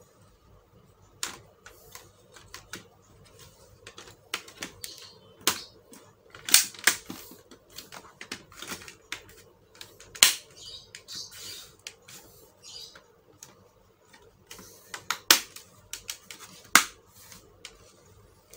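Plastic laptop case being pressed and snapped shut by hand: irregular sharp clicks and taps, a few louder snaps among them, as the cover's clips are seated.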